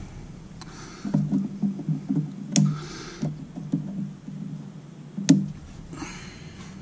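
Handling noise as electrical cable and zip ties are worked against overhead wooden joists: a quick run of dull low knocks for a few seconds, some rustling, and two sharp clicks, the louder one about five seconds in.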